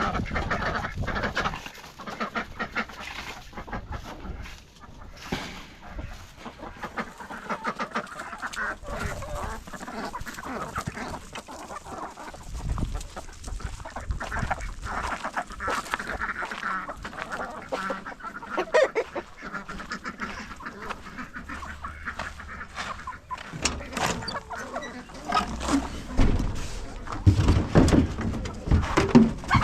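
Farmyard poultry calling continuously while feeding, with scattered clicks and a few louder low thumps near the end.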